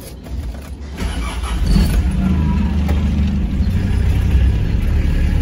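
Vehicle engine pulling away and accelerating, heard from inside the cab; the low running sound gets louder about a second in, then holds steady.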